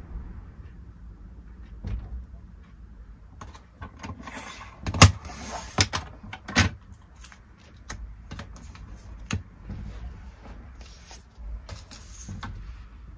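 Hands handling packaging and small items on a desk: soft rustling with scattered light taps, and three sharp clicks a little under a second apart about five seconds in.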